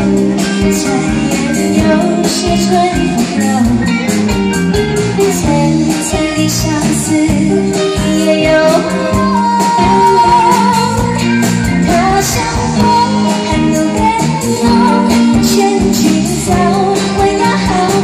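Live band music: a woman singing a song into a microphone over electric guitars and keyboard.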